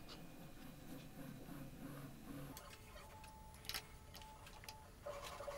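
Faint light clicks and handling noise of 3D-printed plastic parts and bundled wires being fitted together, with a faint steady tone in the background.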